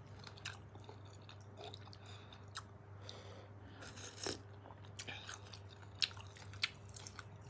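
A person chewing and biting a mouthful of udon noodles, with scattered small clicks over a steady low hum.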